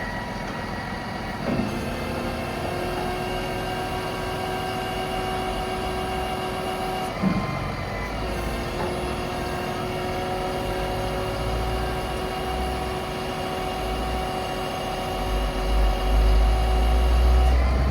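Cummins ISB 6.7-litre diesel engine of a Freightliner M2 utility truck running steadily. Its note shifts twice, each time with a short knock, and a low rumble builds and is strongest near the end.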